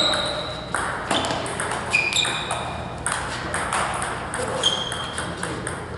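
Table tennis rally: the ball clicking back and forth off the paddles and the table in a quick, uneven run of hits, several of them ringing briefly at a high pitch.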